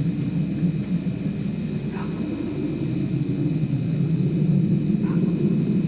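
Outdoor ambience on an old camcorder microphone: a steady low rumble with steady high whining tones throughout, and a short faint chirp about every three seconds.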